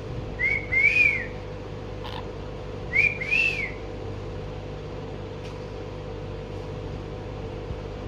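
Green monk parakeet (quaker parrot) whistling two short phrases about two and a half seconds apart; each is a brief note followed by a longer note that rises and falls. A steady low hum runs underneath.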